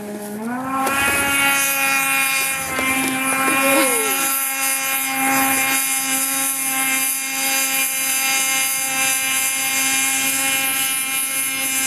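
A small engine speeds up about a second in, then runs steadily at high revs.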